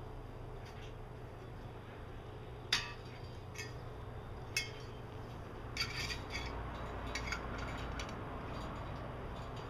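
Scattered sharp metallic clinks and knocks as the enclosure's base units are fitted into the corners of the metal pole frame, the loudest about three seconds in and a quick cluster of them around six seconds.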